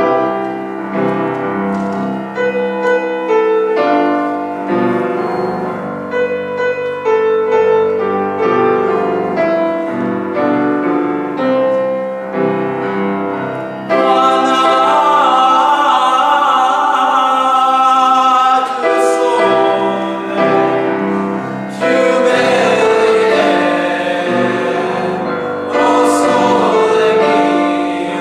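Choir singing with piano accompaniment. The first half is mostly lighter, note-by-note playing; about halfway in the voices come in loud and full on long held notes with vibrato, with short breaks a few seconds apart.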